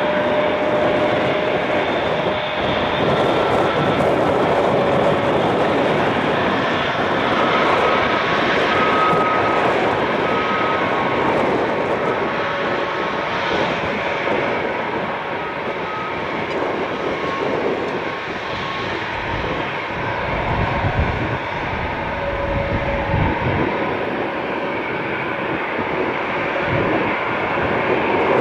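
Jet airliner engines running, a steady, loud rush of engine noise with faint whining tones, and a low rumble about two-thirds of the way through.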